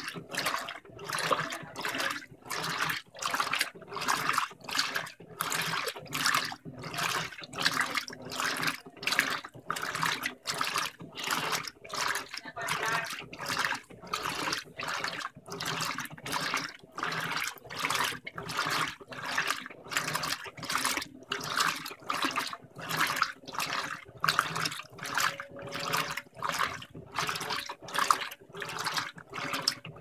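Electrolux LTM15 top-load washing machine in its agitation wash, churning a king-size duvet in soapy water. Each back-and-forth stroke of the agitator gives a swish of sloshing water, about one and a half a second, in a steady rhythm over a faint motor hum.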